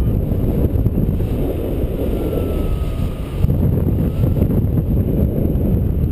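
Airflow buffeting the microphone of a camera mounted on a paraglider pilot in flight: a steady, loud, low rushing.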